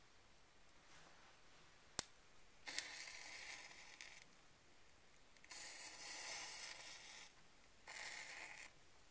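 Cardboard burning on a fireplace grate: a sharp pop about two seconds in, then three spells of hissing crackle as the flame flares up, the middle one the longest.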